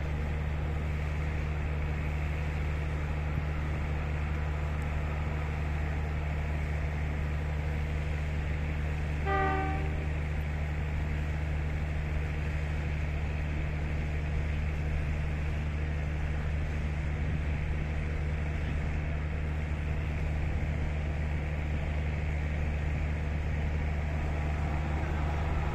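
Blowers of Class 5E1 electric locomotives running with a steady low drone. A short horn toot sounds about nine and a half seconds in.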